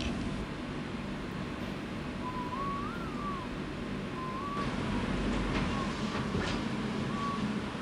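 A person whistling a slow, wavering tune in short phrases over a steady low rumble, with a few light clicks from about halfway through.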